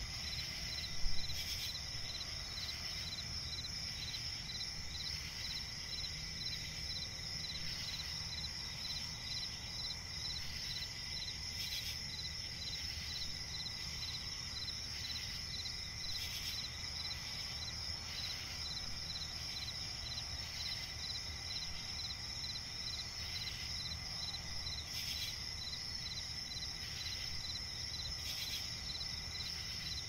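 Crickets chirping in a steady high-pitched chorus over low background noise. A brief louder sound stands out about a second in.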